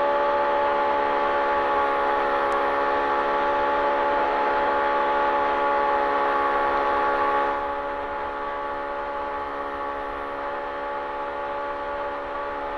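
Polaris RZR Pro R UTV's 2.0-litre four-cylinder engine running hard at a steady, unchanging pitch under race load, a dense droning note with road and wind noise over it; the noise and overall level drop a little about seven and a half seconds in.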